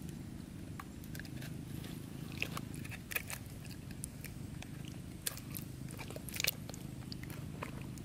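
Wet squelching and irregular clicks of a plastic toy truck being rubbed and swished by hand in thick muddy water, over a steady low hum.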